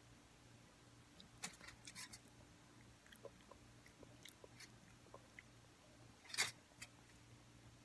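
Faint wet mouth clicks and lip smacks from a child's mouth working over a mouthful of garlic dipping sauce, a cluster of them about a second and a half in and a few more later. One louder short sound comes about six and a half seconds in.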